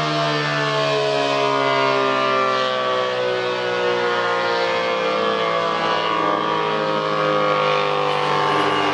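ACA P-50 outdoor tornado warning siren sounding one tone for its monthly test, its pitch sliding slowly down as it winds down.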